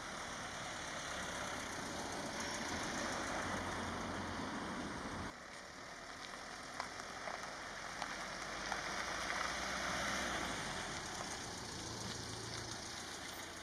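Mercedes-Benz Vito van driving on a street: steady engine and tyre noise. The low rumble drops off suddenly about five seconds in, followed by a few light clicks and knocks.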